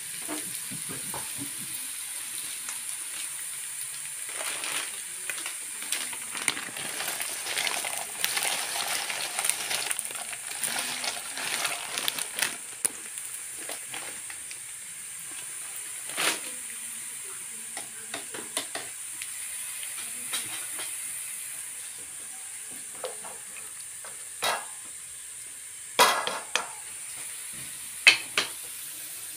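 Chopped vegetables sizzling in oil in a nonstick wok, stirred with a wooden spatula that scrapes and taps the pan. A few sharper knocks of the spatula on the wok come near the end.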